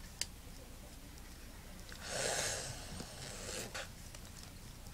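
Faint handling sounds of fly tying at a vise: a light click just after the start, a short hissing rustle about two seconds in, and another click near the end, as thread and synthetic fibre are folded and wrapped onto the hook.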